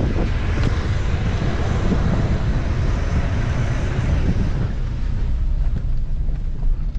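Toyota pickup driving slowly over a rough dirt track: steady engine and tyre rumble with wind buffeting the microphone, the hiss easing about four and a half seconds in.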